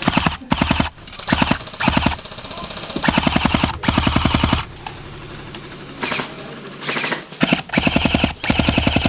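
Airsoft guns firing rapid full-auto bursts, several in a row with short pauses between, the longest about three seconds in.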